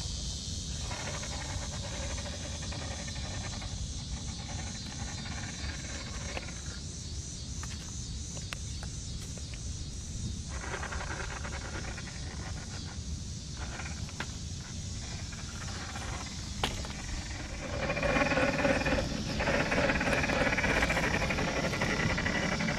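The electric motor and geared drivetrain of an RC4WD Marlin Crawler scale RC truck whine in stop-and-go bursts as it crawls over tree roots. The whine is louder near the end as the truck climbs a root close to the camera.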